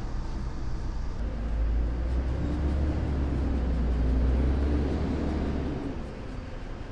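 Low rumble of a passing vehicle, building over a few seconds and dying away about six seconds in.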